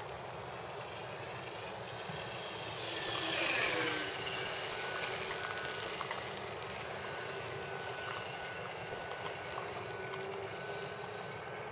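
Electric motor and propeller of a ParkZone Corsair radio-controlled model plane whining as it flies past. It is loudest about three and a half seconds in, with its pitch dropping as it passes, then settles to a steadier, fainter whine overhead.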